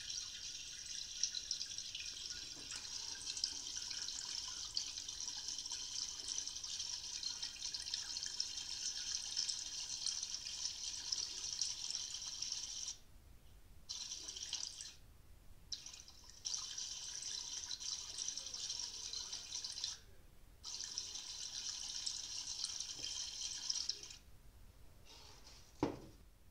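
Small paper-cone loudspeaker driven by a homemade transistor amplifier, playing phone audio as a harsh hissing, crackling sound with almost no bass. The sound cuts out briefly four times and ends with a single pop.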